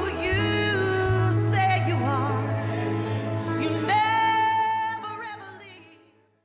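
Worship music: a voice singing long, wavering held notes over a steady low bass, fading out to silence near the end.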